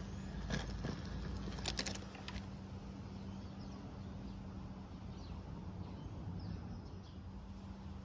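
Wheels of a small garden-railway model locomotive clicking over rail joints and points as it runs in, with a run of sharp clicks in the first two and a half seconds, over a steady low hum. Faint bird chirps come near the end.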